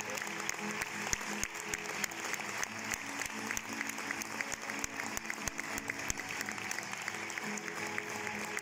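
Theatre audience clapping steadily, the dense applause at the end of a folk dance, while a small band of plucked string instruments such as guitars and lutes plays on underneath.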